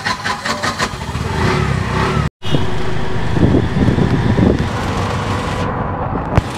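Auto-rickshaw ride: the small engine running with road and traffic noise around it. The sound cuts out completely for a moment about two seconds in.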